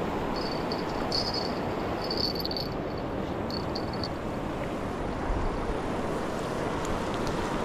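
Rushing river water, a steady even noise. A thin, high chirping comes and goes over it during the first few seconds.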